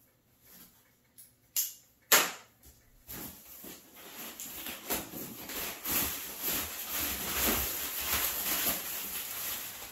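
Two sharp clicks from handling a cardboard shipping box, then, from about three seconds in, a continuous crackling rustle of crumpled packing paper being pulled out of the box.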